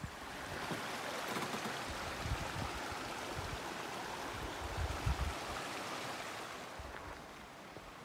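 Rushing stream water: a steady hiss that swells in over the first second and fades out toward the end, with a few low thumps on the microphone.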